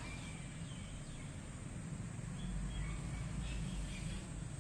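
Quiet, steady background ambience with a low rumble and a few faint, short high chirps.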